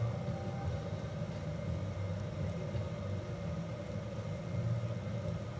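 A steady low mechanical hum, like a fan or motor running, with a faint thin high tone above it.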